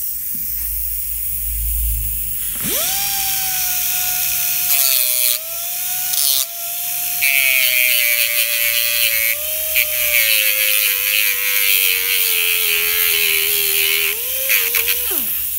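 Die grinder with a sanding disc sanding down the cut steel tang stub of an AK-pattern rifle receiver. After a couple of seconds of hiss it spins up with a sharply rising whine, then the whine sinks slowly in pitch under load while the disc makes a harsh grinding sound against the metal; near the end the whine drops away quickly as the tool winds down.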